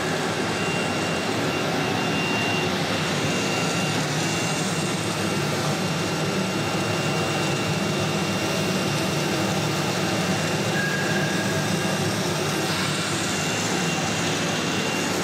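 Steady drone of running workshop machinery, with a thin high whine held throughout. A brief higher tone sounds about two-thirds of the way through.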